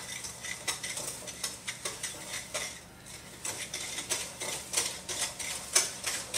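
Wire whisk clicking and scraping against a glass mixing bowl in quick, irregular strokes while butter, sugars, milk and vanilla are mixed by hand, with a brief lull about three seconds in.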